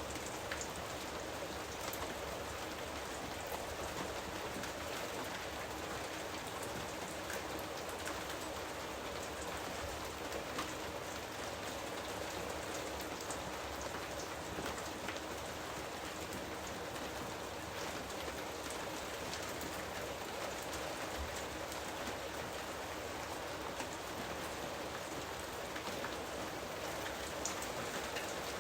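Steady rain falling on a surface, an even hiss dotted with many small drop ticks.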